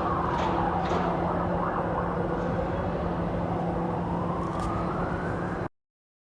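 Emergency-vehicle siren in a slow wail: its pitch falls over about two and a half seconds, then climbs again, over a steady hum of traffic. The sound cuts off suddenly near the end.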